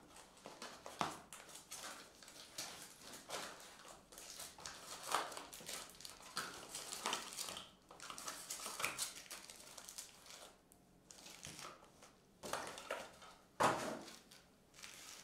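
Wrapped trading-card packs crinkling and rustling in irregular bursts as they are handled and taken out of a cardboard hobby box, with one sharper rustle near the end.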